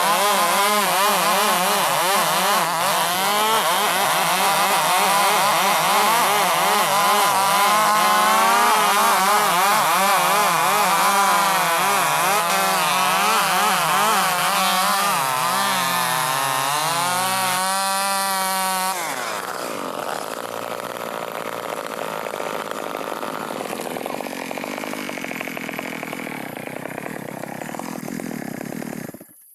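Large 105cc chainsaw running under load while ripping lengthwise through a log, its engine pitch wavering up and down as the chain bites. About 19 seconds in it becomes quieter and rougher, and it cuts off suddenly near the end.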